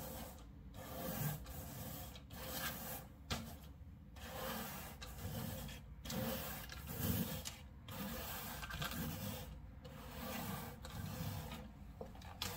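Long-handled bristle brush scrubbing the pile of a wool rug: a scratchy rubbing of steady back-and-forth strokes, broken by brief pauses every second or two.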